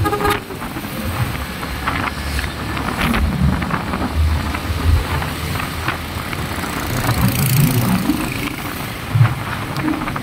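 Yamaha motorcycle cruising on a wet road and speeding up, heard from the rider's seat: engine running under a steady rush of wind and tyre noise, with wind buffeting the microphone.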